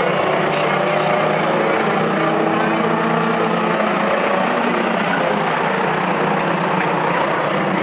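A pack of short-track pickup race trucks running at speed on the oval, their engines blending into one steady, loud drone of several pitches at once.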